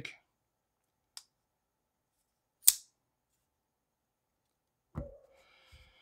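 A single sharp click from a Kizer Grazioso folding knife, about two and a half seconds in, with a faint tick a little before it. A soft low thump comes near the end.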